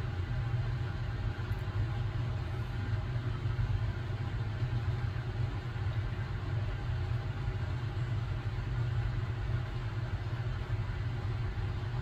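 Steady low rumble of background noise with a faint even hum above it.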